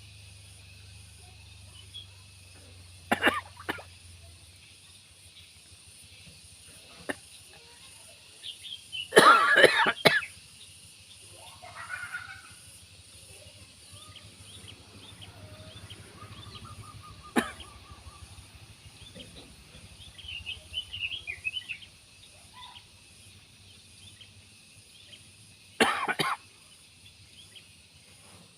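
Steady high insect drone with scattered bird chirps, broken four times by loud, sudden noises, the loudest a cluster lasting about a second.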